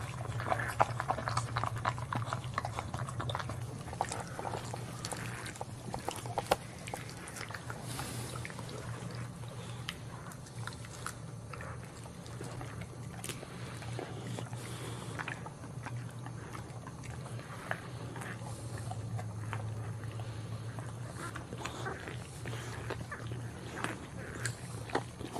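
Boxer dog licking a newborn puppy clean: wet licking and smacking made up of many small irregular clicks, over a steady low hum.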